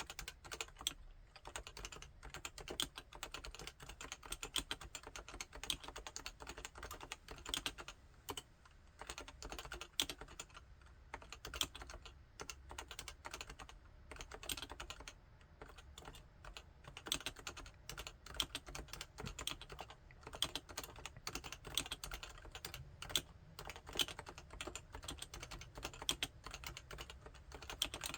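Continuous typing on a Topre Realforce 87UKD55 10th Anniversary tenkeyless keyboard with Topre electrostatic capacitive (contactless) switches: many keystrokes a second in an uneven flow, with brief pauses here and there.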